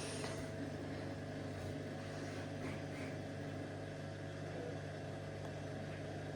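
Samsung washing machine drum and motor running in its spin cycle: a steady mechanical hum and whir with no change in pace.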